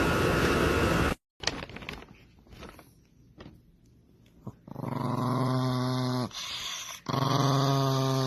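A loud steady noise cuts off about a second in. Then a dog gives two long, low growls, each lasting about one and a half to two seconds and dropping in pitch at the end.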